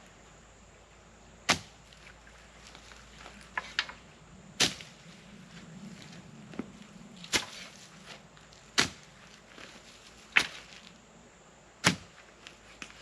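A series of sharp knocks or strikes, about eight in all, coming every second or so, over a quiet outdoor background.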